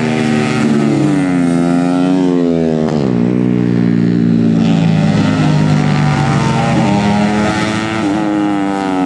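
Four-stroke 130 cc underbone race motorcycle engines revving hard at high rpm, the pitch rising and falling with the throttle. The pitch drops sharply about three seconds in, then climbs again.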